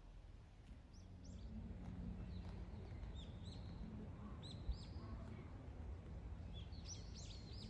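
Small birds chirping in short, arching calls, coming faster and more often near the end, over a low background rumble; a brief low bump about halfway through.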